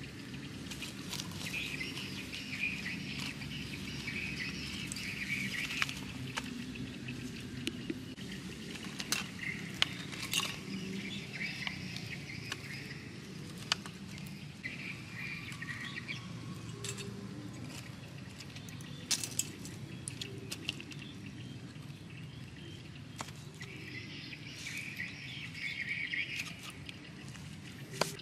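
Birds chirping in bursts over a steady low outdoor background, with scattered sharp clicks and pops throughout.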